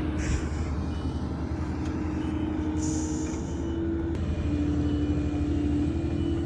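An engine running steadily with a drone that shifts slightly in pitch, and two brief hisses, about a quarter second in and about three seconds in.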